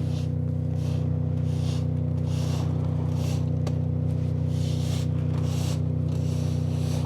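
Tractor engine running steadily at a constant speed, with a soft hiss that swells and fades about once a second.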